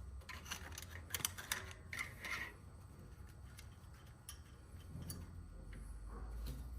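Scattered light clicks and clinks of hand work with tools or parts: a cluster in the first two and a half seconds, then a few more, over a low steady hum.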